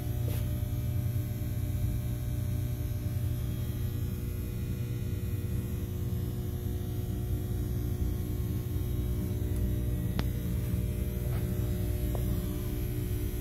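Ship engine room machinery running steadily: a deep, even hum with several steady tones above it, and a few sharp clicks.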